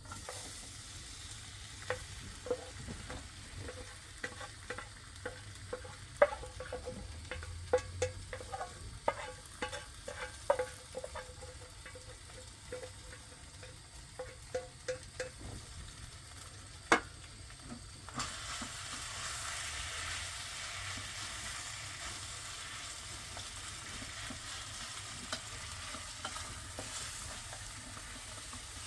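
A utensil knocking and scraping against a metal cooking pot in quick, ringing clinks, with one sharper knock, then a steady sizzling hiss that starts about two-thirds of the way through.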